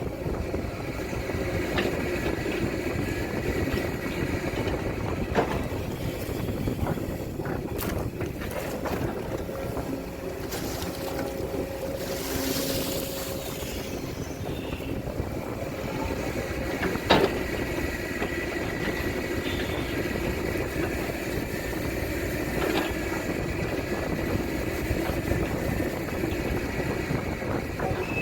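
Case CX210D excavator engine running steadily while digging ditch, with a few sharp knocks, the loudest about seventeen seconds in.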